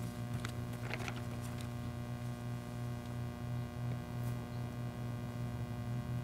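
Steady electrical mains hum with a few faint taps in the first two seconds.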